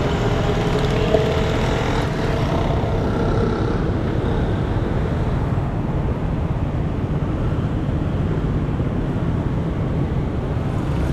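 Motorcycle riding through city traffic: a steady engine rumble with road and wind noise.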